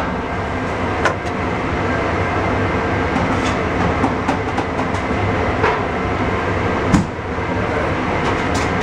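Steady machine drone with a low hum, from running kitchen equipment, under a few sharp clicks and knocks as a knife works through a tuna loin on a plastic cutting board; the loudest knock comes about seven seconds in.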